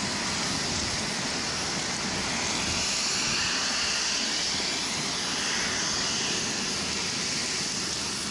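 Aircraft engine noise, a steady rush with a faint whine that rises and then falls a few seconds in as the aircraft passes.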